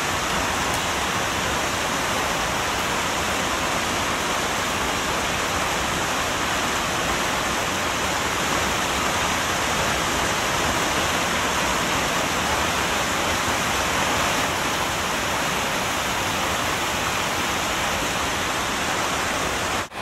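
Steady, unbroken rushing hiss, even in level, like static or running water, with no distinct events in it.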